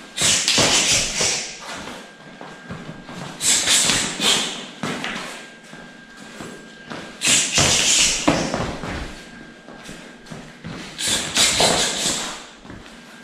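Partner drill of kick defence: four bursts of thuds and foot scuffs, a few seconds apart, as a kick is blocked with the raised shin and answered with quick punches.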